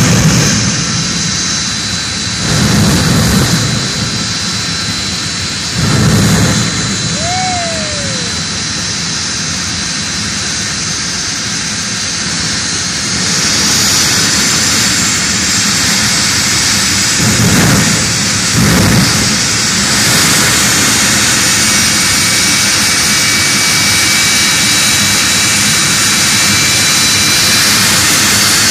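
Jet dragster's jet engine running in place with a steady high whine, with several louder bursts as it throws flame from the afterburner, twice in the first few seconds and twice more near the middle. The noise rises and stays louder from about halfway through.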